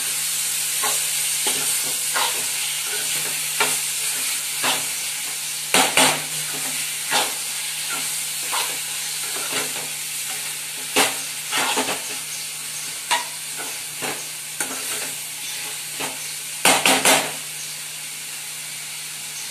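Minced chicken sizzling as it fries in oil in a metal kadhai, with a steady hiss, while a spatula stirs it, scraping and knocking against the pan every second or so and clattering louder a few times.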